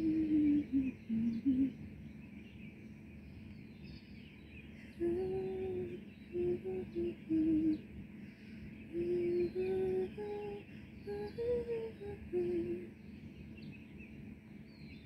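A person humming a slow tune in three phrases of held notes, with small birds chirping faintly throughout.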